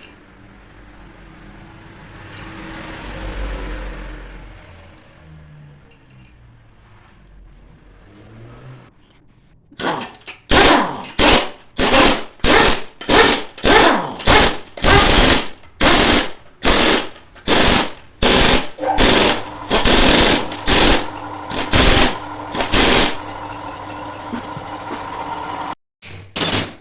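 Compressed-air workshop tool fired in about fourteen short, loud, evenly spaced bursts, roughly one and a half a second. It is then held on steadily for a couple of seconds and cut off abruptly.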